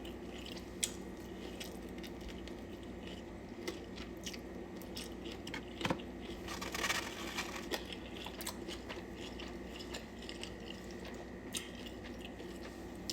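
A person chewing and biting food close to the microphone, with scattered small mouth clicks and a slightly louder crunchy stretch about six seconds in.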